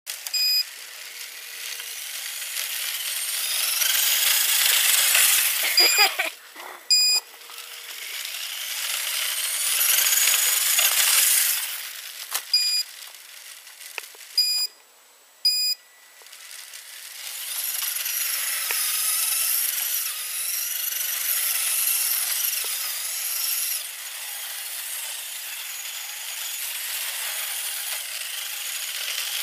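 Traxxas Slash VXL RC truck's brushless electric motor whining up and down in pitch as it accelerates and slows. The tyres hiss through snow, and the sound swells as the truck passes close several times.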